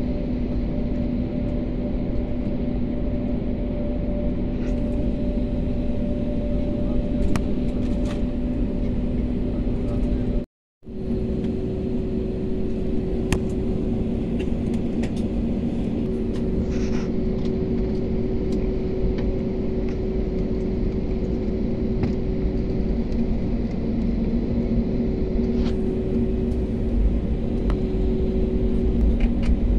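Jet airliner cabin noise during taxi: steady rumble of the engines and airflow with a constant low hum of several steady tones. The sound drops out for a moment about ten seconds in.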